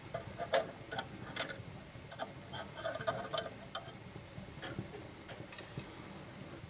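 Light, irregular metallic clicks and taps as a new coil spring is handled and fitted against the steel self-adjuster hardware of a drum brake.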